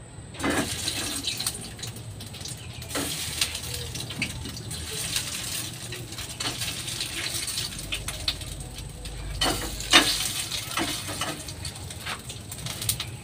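Oil sizzling steadily in a pan on a gas stove as food fries, with scattered clicks and knocks of a metal utensil against the pan, the sharpest about ten seconds in.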